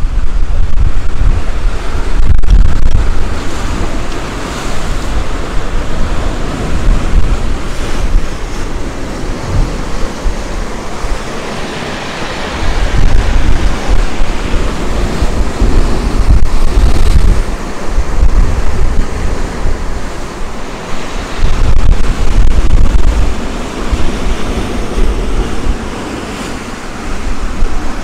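Sea waves breaking and washing onto the beach in a steady surf, with wind buffeting the microphone in gusts.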